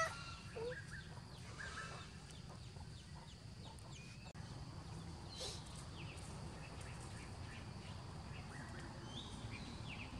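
Faint, scattered short animal calls over a steady low background rumble.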